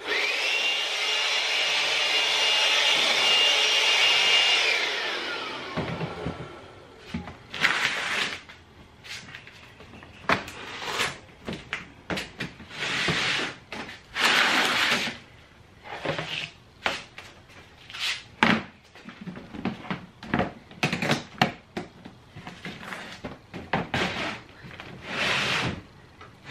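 Cordless handheld blower switched on: a rushing blast with a high motor whine that rises at the start, runs steadily for about four and a half seconds, then winds down. After it, plastic bottles and containers knock and clatter, again and again, as they are packed into plastic storage bins.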